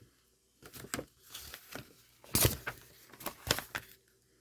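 Paper pages of an instruction booklet rustling and crinkling as it is opened and leafed through, in a series of short rustles, the loudest about halfway through.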